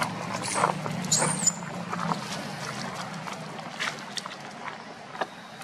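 Baby long-tailed macaque giving short, very high-pitched squeals, twice in the first second and a half, over a low steady drone that fades out after about two seconds. Scattered light clicks and scuffs from the monkeys moving over gravel and dry leaves.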